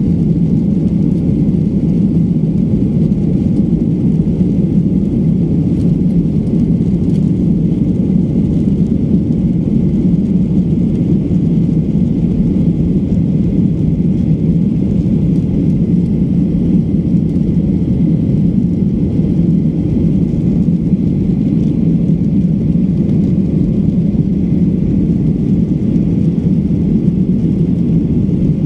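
Steady, loud cabin rumble of a jet airliner's engines and airflow as heard inside the passenger cabin during the climb, with its flaps still extended. It is an even low roar with no change throughout.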